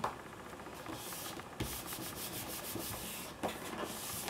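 Hands rubbing and sliding card stock panels over a tabletop, pressing glued white paper into album covers: a steady papery rubbing, fuller in the middle, with a light tap at the start.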